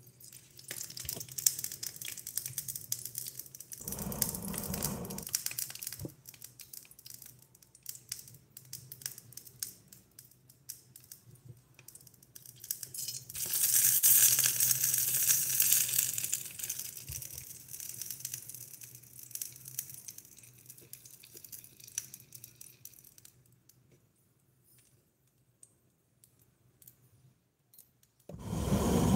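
Miniature beef cabbage rolls sizzling and crackling in a tiny steel pot over a small burner, swelling to a louder sizzle about halfway through as a roll is turned with a toothpick, with small clicks of handling. A dull low rumble comes about four seconds in and again at the end.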